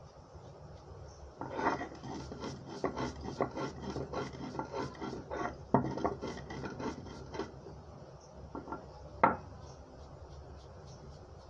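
Fried spices being ground by hand on a sil-batta: the stone roller scraped and knocked back and forth over the stone slab in a quick run of rasping strokes, ending with one sharp knock.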